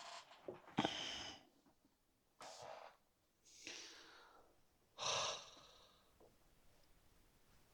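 A person breathing close to the microphone: four short audible breaths and sighs with gaps between them.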